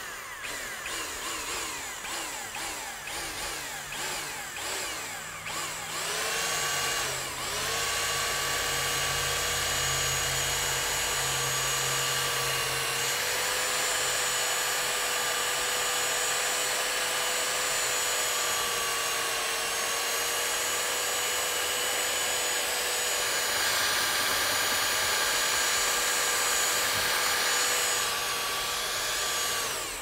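Handheld electric paddle mixer churning cement-based overlay powder into water in a bucket. It runs unevenly for the first several seconds. From about six seconds in it settles into a steady high whine at full speed, and it cuts off just before the end.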